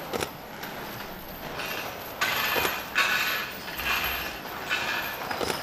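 A heavy wooden cross dragged along stone paving, its foot scraping in rough strokes about once a second at a walking pace, after a couple of sharp knocks at the start.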